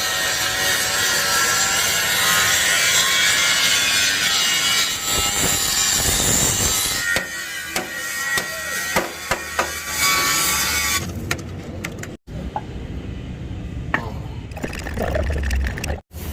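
A tool cutting or grinding with a harsh, rasping noise and a high ringing edge for the first six or seven seconds, then a series of separate knocks and clicks, followed by quieter workshop noise.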